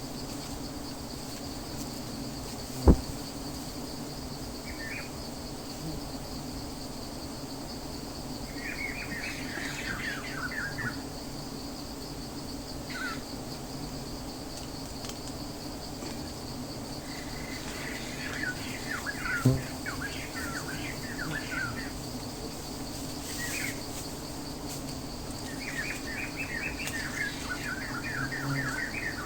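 Rural outdoor ambience: songbirds chirping in short bursts over a steady high insect trill and a low steady hum. Two sharp knocks, about 3 seconds in and again about 19 seconds in, are the loudest sounds.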